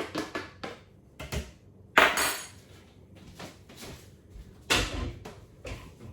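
Kitchen containers and utensils clattering against a worktop and bowl: a few light knocks, a loud sharp clatter about two seconds in, and another strong knock near the end.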